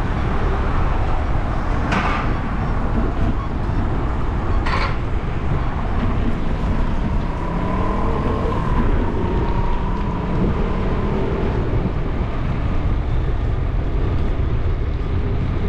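Wind rumbling on a bicycle-mounted action camera's microphone during a ride, with street traffic passing. Two short knocks come about 2 and 5 seconds in, and a vehicle passes around the middle with a faint gliding pitch.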